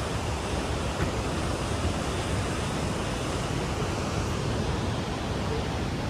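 Steady rush of flowing water, such as a creek or waterfall.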